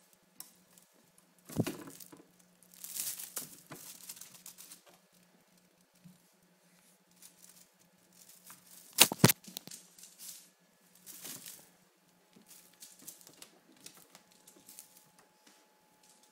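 Crinkling and rustling of a shiny cellophane-strip wand toy as kittens bat and bite at it, in irregular bursts, with two sharp knocks about halfway through.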